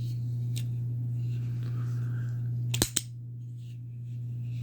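Benchmade Presidio automatic axis-lock knife's spring-loaded blade snapping open: two sharp clicks in quick succession about three seconds in, over a steady low hum.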